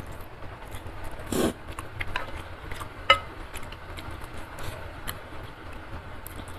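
Close-miked eating sounds from instant curry noodle soup: a short slurp of noodles about a second and a half in, then wet chewing and small mouth clicks. A sharp click comes just after three seconds.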